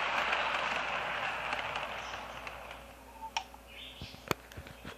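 O gauge model train rolling along tinplate track with a steady hiss of wheels and motor that fades away over the first three seconds as the train slows or draws off. After that come several sharp clicks and knocks, handling of the model.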